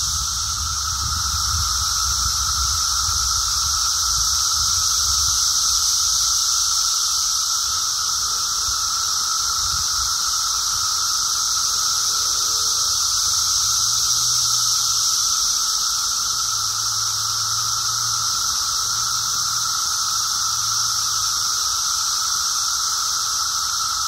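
Dense, unbroken chorus of Brood X periodical (17-year) cicadas: a steady droning whine in two pitches at once, a lower one and a stronger, much higher one.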